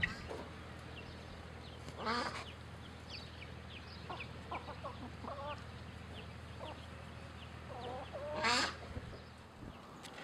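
Chickens clucking, with two louder squawking calls, one about two seconds in and one near the end, and a string of faint, short, high chirps between them.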